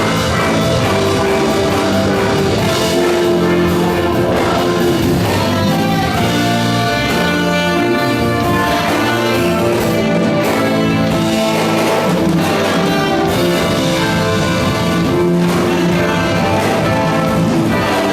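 Music played by an ensemble of instruments, held at a steady loudness with many sustained notes.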